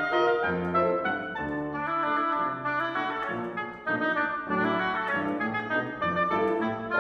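Oboe and piano playing classical chamber music: a changing oboe melody over low piano notes.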